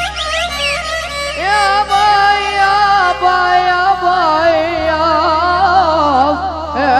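Middle Eastern mawwal music: a heavily ornamented, wavering melody with pitch slides over a steady low drone.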